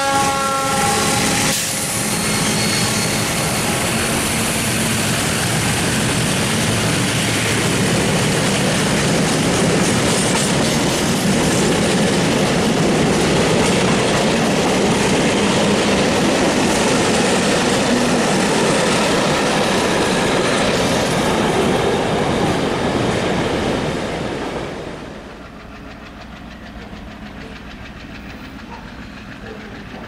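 The horn of MLW diesel locomotives sounds a chord that cuts off about a second and a half in, as the locomotives pass at speed. A long freight train follows, its wagons rolling loudly past on the rails, until the sound drops away sharply after about 24 seconds to a faint distant rumble.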